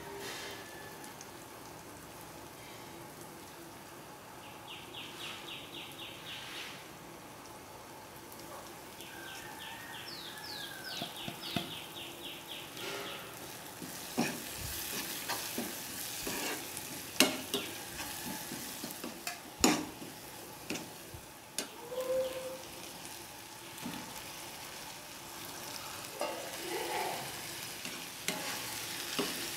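Spiced onion-tomato masala sizzling in a pan of hot oil while it is stirred, with sharp knocks of the spatula against the pan, several loud ones near the middle.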